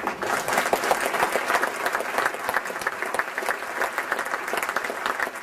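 Audience applauding, a dense patter of many hands clapping that carries on until near the end.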